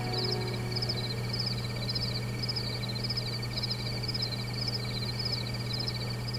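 Night-time ambience of crickets and frogs chirping: a high chirping trill repeating about twice a second over a steadier pulsing trill and a low hum.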